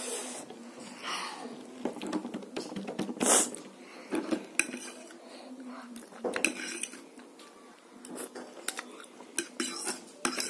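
A metal fork clinking and scraping against a plate in irregular, sharp taps as food is picked up.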